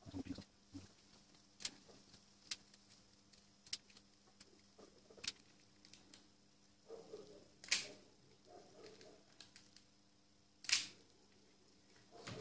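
Scattered sharp clicks and small snaps of wire-stripping pliers and wires being handled at an ATV's battery and relay box, with two louder snaps about eight and eleven seconds in and some rustling between them.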